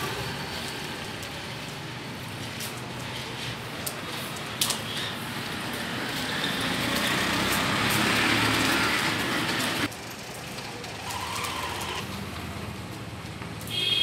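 Road traffic noise, a steady hum of passing vehicles that swells as one goes by. The noise drops abruptly about ten seconds in, and a short high beep sounds right at the end.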